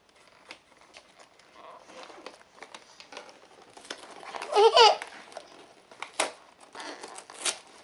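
Cardboard toy box with a plastic window being handled and pulled at to get it open: scattered crinkles, crackles and clicks of packaging. A short child's vocal sound about four and a half seconds in is the loudest moment.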